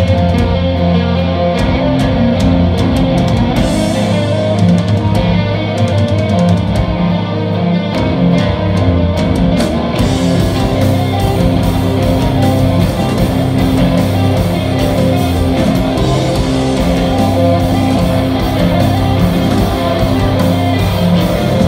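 Live rock band playing loud: electric guitars, bass guitar and drum kit together. About halfway through, the drums open up into a steady wash of cymbals.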